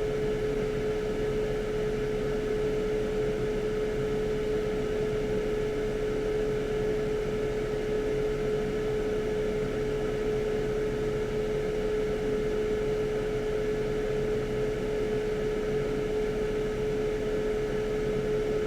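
Steady whirring hum of a small fan motor on the repair bench, with one constant pitched tone over an even noise.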